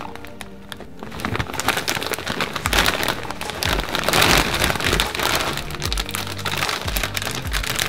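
Dense crackling and rustling, loudest around the middle, over background music with a low bass line.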